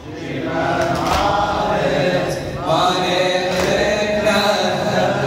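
Male voices chanting an Arabic Shia latmiya led by a radood, sung in long held lines.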